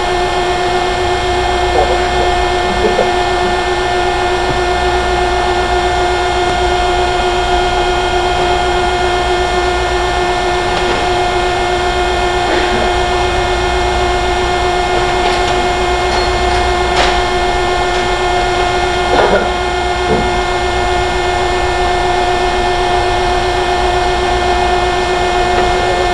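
Industrial machinery running with a steady, constant-pitched hum and whine, and a few light knocks and clanks.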